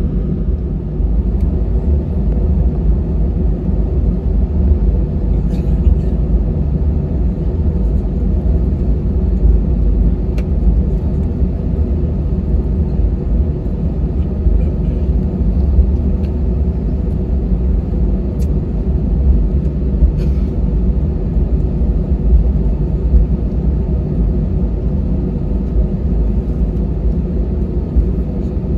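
Cabin noise of an Airbus A320 taxiing: a steady low rumble from the engines at idle and the aircraft rolling along the taxiway, with a faint steady hum and a few small clicks.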